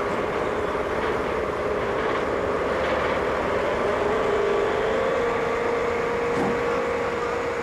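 Vehicle engine running steadily with a whining tone that drops slightly in pitch about four seconds in.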